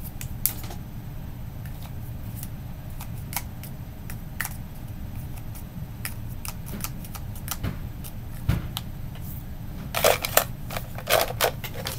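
A Sharpie marker and pencils handled over a plastic pen cup, giving scattered light clicks and taps, with a quicker run of clattering near the end, over a steady low hum.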